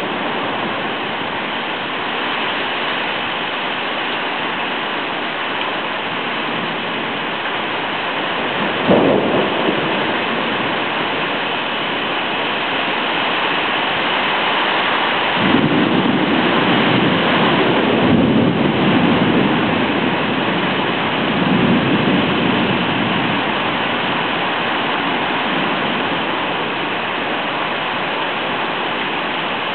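Heavy rain falling steadily in a thunderstorm, with a short sharp crack of thunder about a third of the way in and a long rolling rumble of thunder around the middle that swells and fades over several seconds.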